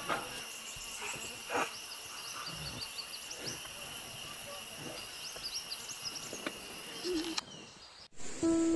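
Forest ambience: insects shrilling steadily at two high pitches, with scattered short bird chirps and a few louder calls. Near the end it cuts out abruptly and piano music begins.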